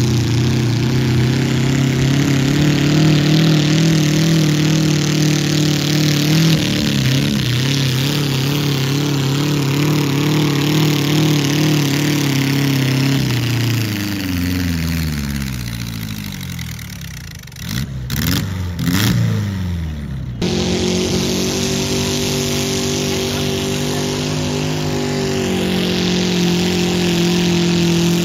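Mini mod pulling tractor engine at full throttle, pulling a sled, its pitch falling steadily over several seconds as the run winds down. About two-thirds of the way through, it is abruptly replaced by another pulling tractor's engine held at high revs.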